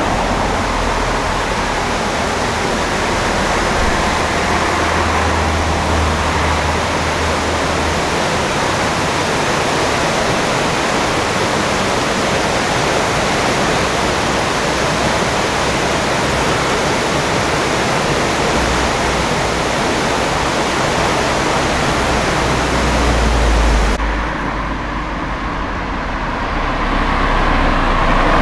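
A steady, even rushing noise with no clear pitch. Near the end it gives way to a car driving past on the road, growing louder as it nears.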